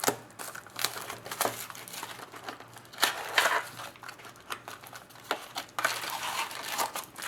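Plastic wrapping on a sports card box crinkling and tearing as it is opened, in irregular rustles and sharp crackles.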